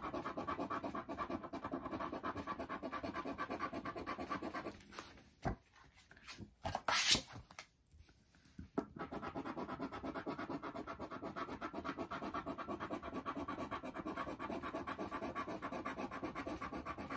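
A round blue scratcher rubbing rapidly over the latex coating of a scratch-off lottery ticket, a steady run of quick scratching strokes. It stops for a few seconds near the middle, where there are a few short handling noises and one brief louder one, then starts up again.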